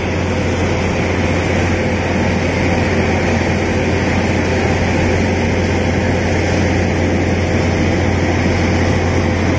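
Compressed-air jet of water blasting steadily out of a borewell discharge pipe with a loud rushing noise, over the low hum of the diesel generator and air compressor driving it. The air-lift is flushing a new 500-foot bore to clean the water.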